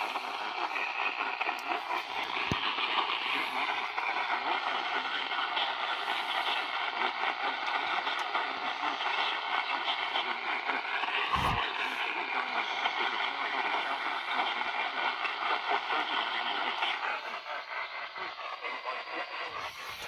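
Eton Traveller III portable radio's speaker playing weak AM reception on 870 kHz: a steady wash of static and noise with faint wavering whistles of interfering stations. The station audio is mostly buried. The noise thins a little about seventeen seconds in.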